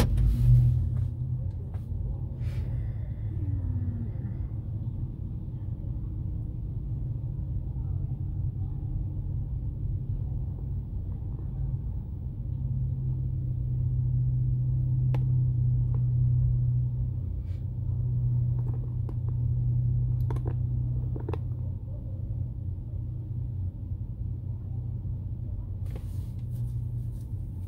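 A thump right at the start, then a car's steady low rumble of engine and road noise while driving, heard from inside the cabin, with a few faint clicks.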